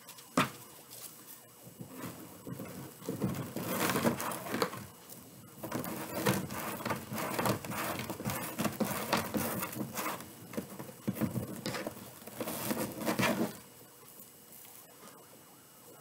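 Gold metallic mesh ribbon and its clear plastic sleeve crinkling and rustling as they are handled, in irregular bursts with small clicks, dying down about two seconds before the end.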